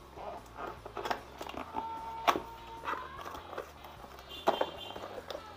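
Cardboard product box being opened by hand: the flaps rustle and scrape, with a few sharp crackles as the wrapped contents are worked out.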